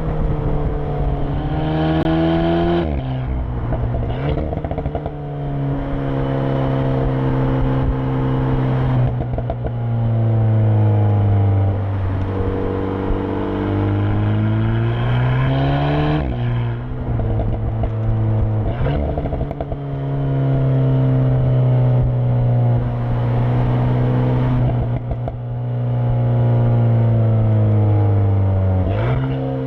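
Alpine A110 Premiere Edition's 1.8-litre turbocharged four-cylinder heard through its sport exhaust, pulling through the gears several times. The engine note climbs and then drops sharply at each upshift, with steadier cruising stretches in between and short crackles around some of the gear changes.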